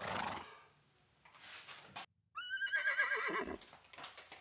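A horse's whinny: one quavering, high neigh starting suddenly about two seconds in and fading after about a second. A short noisy sound comes at the very start.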